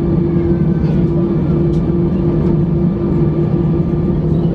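Airbus A320 cabin noise while taxiing: the jet engines at low thrust give a steady, loud, low hum with a constant tone, heard from inside the cabin.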